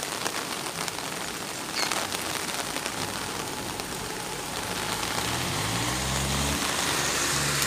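Steady hiss of heavy rain on wet pavement. From about four and a half seconds in, a car's engine rises in pitch and grows louder as it pulls away across the level crossing on the wet road.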